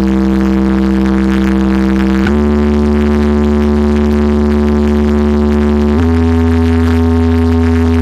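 A huge DJ speaker-box wall playing loud, sustained synth bass tones during a sound check, each note held for a few seconds and stepping up in pitch about two seconds in and again about six seconds in.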